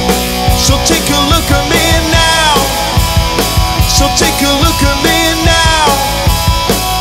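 A rock band playing live, loud and steady: drum kit keeping a steady beat under electric guitar and bass guitar.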